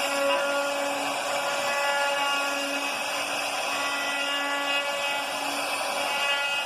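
CNC router spindle running and cutting into a wooden board: a steady, loud whirring hiss, with a pitched whine that starts and stops several times.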